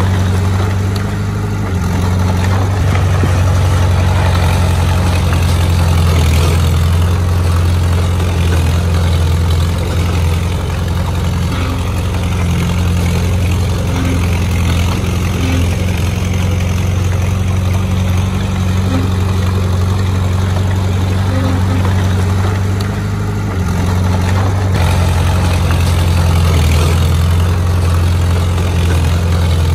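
Heavy diesel engine of earth-moving machinery running steadily, its note dipping briefly about three-quarters of the way in and then picking up again.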